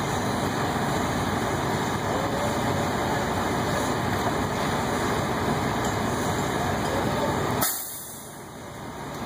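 Steady noise of heavy diesel machinery running, the crane and truck at work. About seven and a half seconds in comes a short sharp hiss, after which the noise drops away for a moment.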